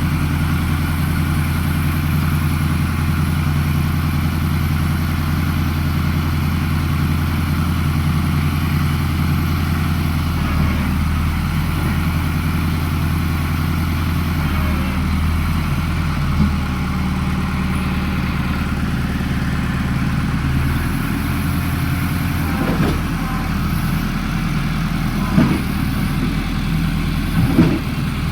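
An engine running steadily at a constant speed, its note shifting slightly about ten seconds in, with a few short knocks near the end.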